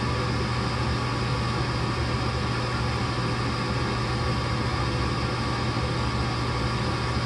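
Gas furnace blower running with a steady hum over a rush of air, with no ignition: the igniter is not lighting, which the owner takes for a bad igniter.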